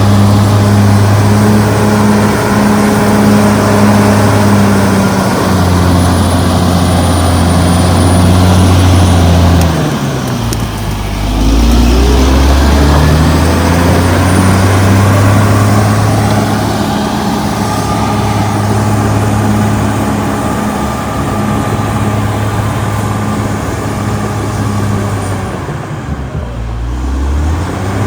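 Caterpillar D6R XL bulldozer's diesel engine running hard. Its revs drop steeply and climb back twice, about ten seconds in and again near the end.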